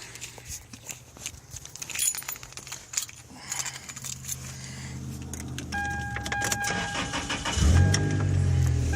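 Keys jangling and clicking in the ignition of a Toyota pickup, a dashboard warning chime sounding from about six seconds in, then the engine cranking and catching about a second and a half before the end and running on. The exhaust still leaks at the catalytic converter, which is wrapped in exhaust wrap as a makeshift patch.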